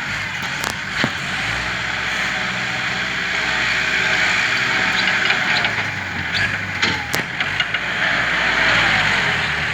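Engine of an earth-moving machine running steadily under work, with a few sharp clanks.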